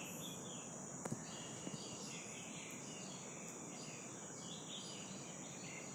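Quiet steady background noise with a constant high-pitched drone, and a faint click about a second in.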